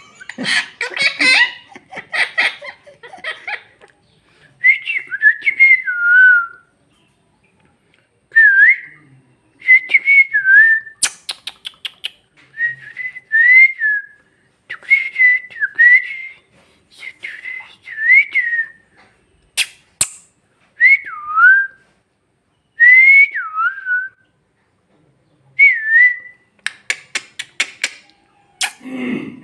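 Parrot whistling short phrases over and over, each a quick rising-then-falling whistle, after a few seconds of chattering at the start. Sharp clicks break in a few times, around the middle and near the end.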